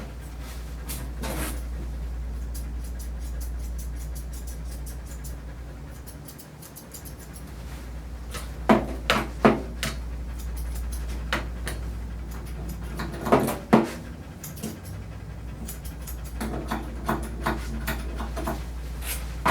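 Portuguese Water Dog panting over a steady low hum, broken by three clusters of short sharp clicks or knocks: about 9 seconds in, about 13.5 seconds in, and a longer run a few seconds before the end.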